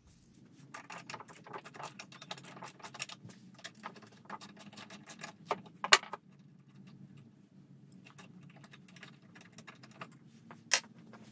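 Socket ratchet clicking and small metal tools rattling while the lawnmower carburetor's mounting bolts are loosened, with a sharp clack about six seconds in and another near the end.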